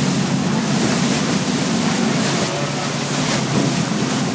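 Boat engine running steadily with a low hum, under a constant rush of water and wind on the microphone.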